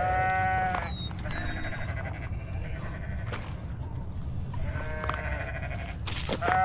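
Three short, pitched animal calls, each under a second and arching slightly in pitch: one at the start, a fainter one about five seconds in, and the loudest near the end.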